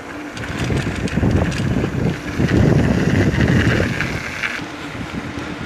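Wind buffeting the phone's microphone in uneven gusts, a low rumble that is strongest about halfway through.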